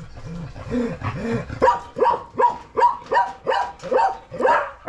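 A dog barking repeatedly, about three barks a second, from about one and a half seconds in; before that come a few low, drawn-out sounds.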